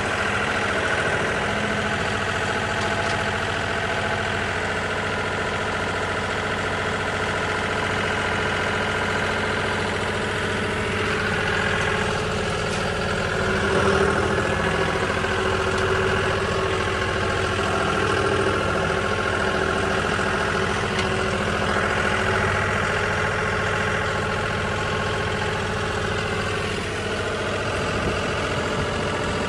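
Tractor engine running steadily with hay-baling machinery working, the level rising slightly about halfway through.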